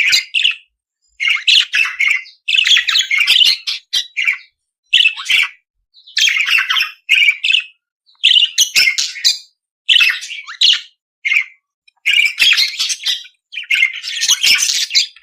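Budgerigar warbling and chattering in quick bursts of scratchy chirps and squawks with short pauses between them: the budgie song played as a warm-up to get other parakeets singing.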